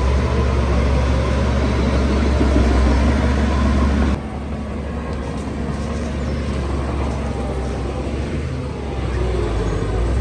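Heavy diesel construction machinery running steadily with a deep engine hum. About four seconds in the sound drops suddenly to a quieter, duller running.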